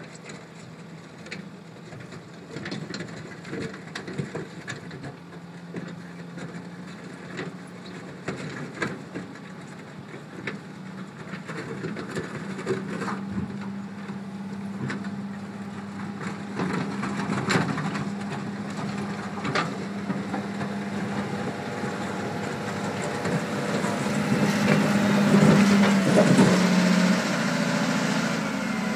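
Caterpillar 950 wheel loader's diesel engine running steadily as the machine drives in pushing earth with its bucket, growing louder as it comes closer and loudest near the end. Scattered knocks and clatter run through the engine sound.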